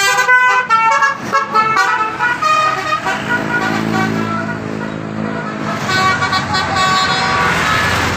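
Bus 'telolet' multi-tone air horn playing a quick run of stepped musical notes. It pauses in the middle under a lower, steadier drone, then plays another run of notes near the end.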